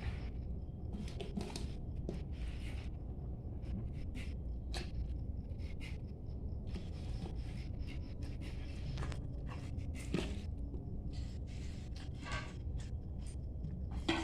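Hands working filling into a whole raw chicken, with rustling and scraping handling noises and scattered small clicks, over a steady low background rumble.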